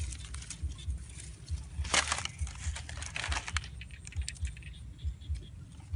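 A machete and a wooden stick scraping and knocking at dry soil and twigs around a snake hole: a run of small irregular clicks and scrapes, with one louder scrape about two seconds in.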